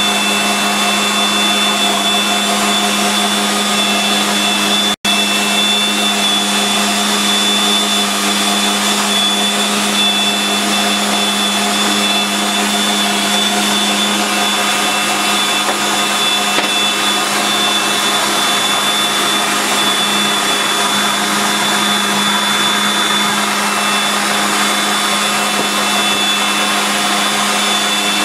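Bosch food processor motor running steadily at full speed (setting 4), puréeing chickpeas into hummus, with a constant hum and a high whine. The sound breaks off for an instant about five seconds in.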